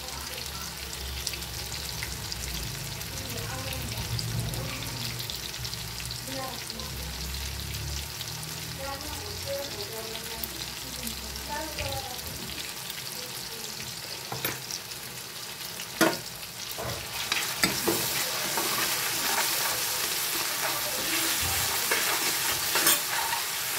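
Onions, tomatoes and green chillies sizzling in oil in a kadai. About two-thirds of the way through, a spatula knocks and scrapes against the pan as the mix is stirred, and the sizzling grows louder.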